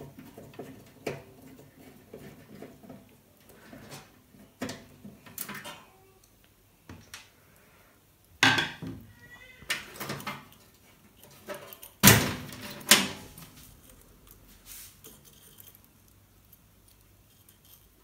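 Hands and pliers working on the wiring inside a microwave oven's sheet-metal case: scattered clicks, knocks and light metallic rattles as the spade connectors are pulled off the temperature sensors. The sharpest knocks come at about eight and a half, twelve and thirteen seconds in.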